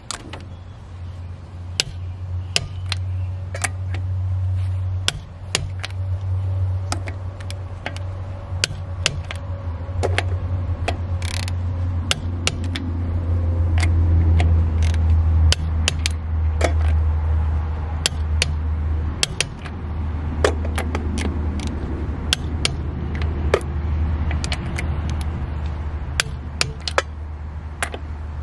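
A 1/2-inch-drive click-type torque wrench ratcheting and clicking as trailer wheel lug nuts are tightened to 80 foot-pounds. The sharp clicks come at irregular intervals throughout, over a steady low hum.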